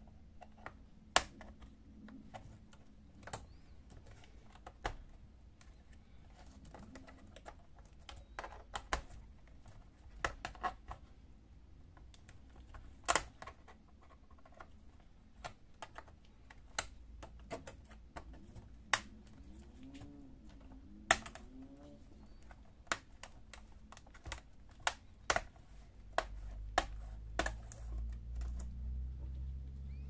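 Plastic clips of a Toshiba Satellite C660 laptop's keyboard cover strip clicking loose one by one as a pry tool works along it, a scatter of sharp snaps and taps. A low rumble of handling comes in over the last few seconds.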